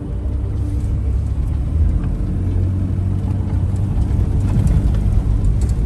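Car engine and tyres rumbling over a rough dirt road, heard from inside the cabin, growing slightly louder as it goes.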